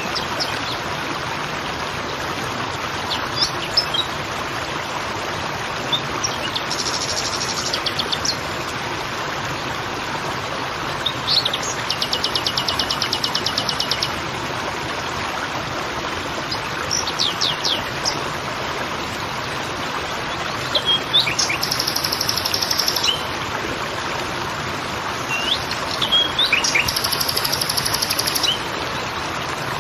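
Creek water babbling with a steady rush, while songbirds chirp, giving quick rising chirps and four rapid trills that each last one to two seconds.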